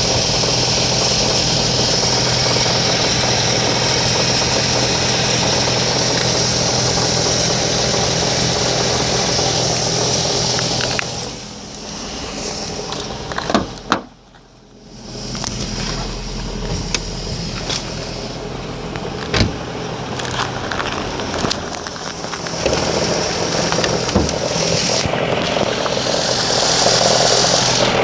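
Ford Mondeo IV engine running with an extraneous noise that the owner wonders may come from the flywheel. The sound changes about eleven seconds in, drops away almost completely for about a second, then comes back steady with a few sharp clicks.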